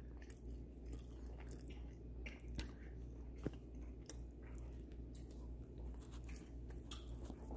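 A person faintly chewing a mouthful of habanero cheese, with a few soft clicks, two of them sharper about two and a half and three and a half seconds in, over a low steady hum.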